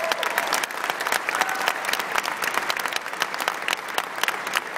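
Large audience applauding in a big hall: many hands clapping densely and steadily throughout.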